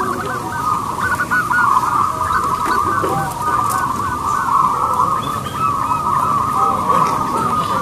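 Zebra dove (perkutut) cooing: short rising-and-falling notes that run together without a break, with fainter, higher bird notes scattered through.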